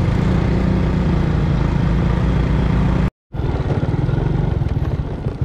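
A small engine running steadily. The sound cuts out completely for a split second about three seconds in, then resumes with a more uneven, pulsing note.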